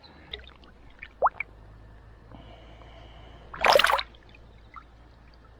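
A short splash of water about three and a half seconds in, with small drips and clicks before it.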